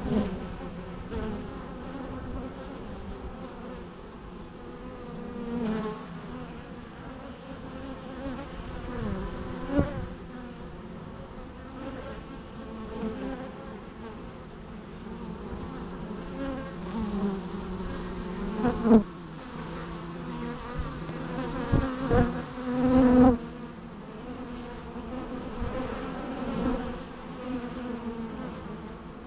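Many bees buzzing together in a steady hum. Single bees buzz close past the microphone, their pitch bending as they pass, with the loudest passes about two-thirds of the way through.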